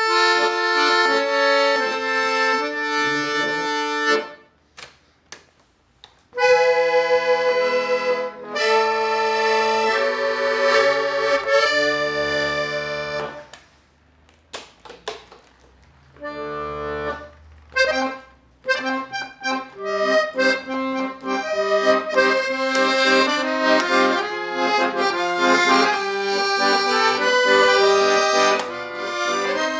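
Accordion being played in a sound test: sustained reedy chords and a melody line. It breaks off twice into near-quiet with a few short notes, then plays a quicker, busier passage in the last third.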